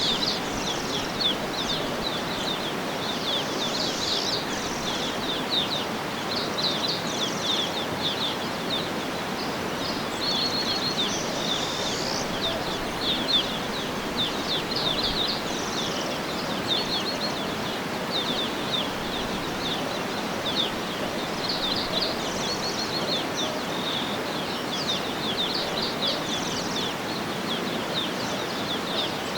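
Outdoor nature ambience: many birds chirping, short high chirps coming thick and fast, over a steady background hiss.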